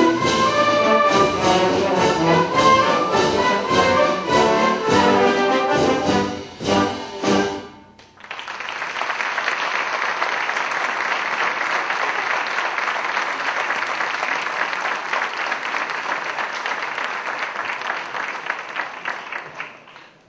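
Youth wind band of brass, woodwinds and percussion finishing a piece with a run of short, accented full-band chords, then audience applause starting about eight seconds in and fading out near the end.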